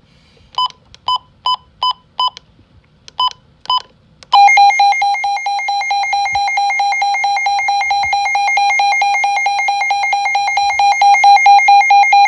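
A weather radio beeps seven times, five quick beeps and then two, and about four seconds in its alert alarm starts: a loud electronic tone pulsing rapidly and without a break.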